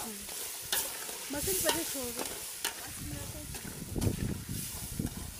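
Tomato, coriander and capsicum base sizzling in oil in a pot while it is stirred, with a few sharp knocks of the spoon against the pot.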